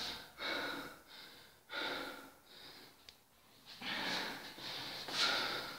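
A woman breathing hard, with heavy panting breaths in and out about once a second, out of breath from climbing many flights of stairs.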